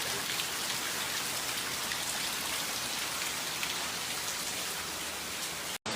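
Heavy rain falling steadily: a dense, even hiss of downpour. It cuts out for an instant near the end.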